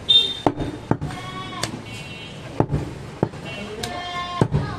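Goats bleating in several short calls, mixed with sharp knocks of a cleaver chopping on a wooden block.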